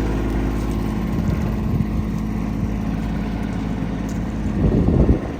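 Kubota LX2610 compact tractor's three-cylinder diesel engine running steadily, with a brief louder low rumble near the end.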